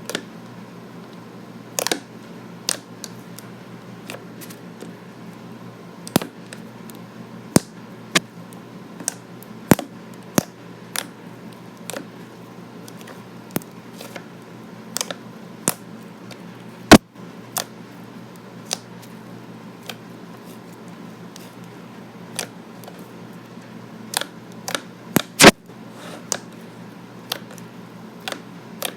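Slime being poked with fingers, giving sharp sticky pops and clicks at irregular intervals, one or two a second, over a steady low hum.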